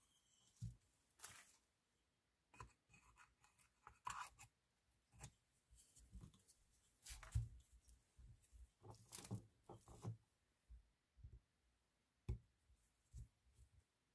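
Faint, scattered clicks and short scrapes of a small 12-volt portable air compressor's plastic housing and parts being handled and fitted by hand with a screwdriver.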